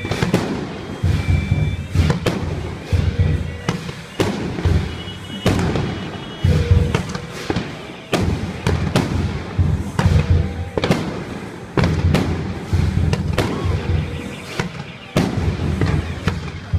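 Fireworks going off in an irregular, continuous barrage: many sharp bangs, several a second, over deep booms.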